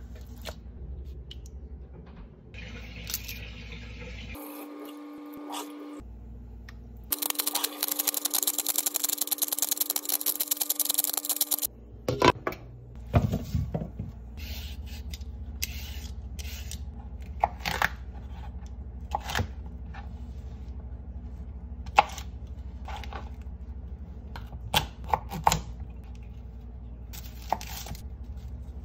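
Tap water rushing into a steel pot for several seconds, under a steady hum, then a knife cutting vegetables on a plastic cutting board in irregular sharp knocks.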